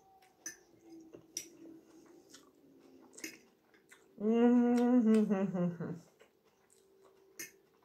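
A woman's closed-mouth "mmm" hum while eating, about two seconds long, held steady and then falling in pitch, about four seconds in. A few faint clicks of a fork and of chewing come before and after it.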